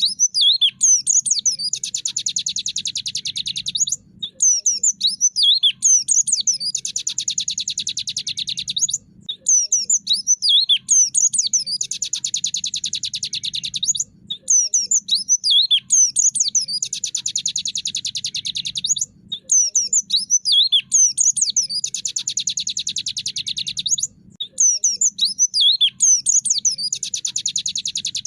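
White-eye (pleci) singing: a burst of quick, varied high chirps running into a long, fast rattling trill, the 'tractor' song, repeated about every five seconds with short pauses between phrases.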